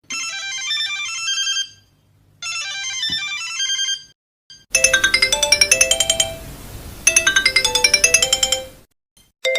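Sony mobile phone ringtones. A short, high electronic melody plays twice with a pause between. A louder, fuller ringtone with a bass line follows and repeats its phrase twice, and another melody begins right at the end.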